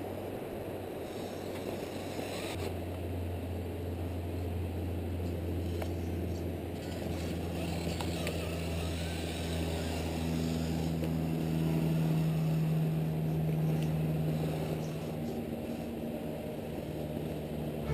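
Electric motor and geared drivetrain of an Axial XR10 radio-controlled rock crawler whirring steadily at crawling speed, a low hum that grows stronger around the middle.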